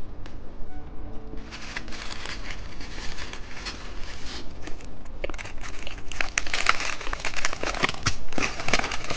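Candy wrapper being crinkled and torn open by hand: dense crackling starts about a second and a half in and keeps going.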